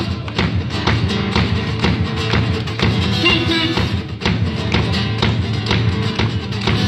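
Live acoustic duo playing: an acoustic guitar strummed in a steady, percussive rhythm, with a short sung phrase about three seconds in.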